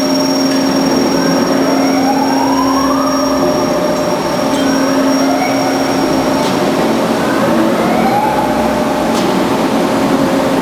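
Band saw running with a steady hum, with a rising whine that repeats about every two and a half seconds.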